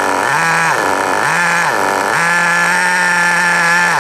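SH .18 nitro engine of a 1/8 HSP Camper RC buggy, freshly restarted during its break-in, revved up and back in three short throttle blips. The last rise is held for about two seconds before the revs drop right at the end.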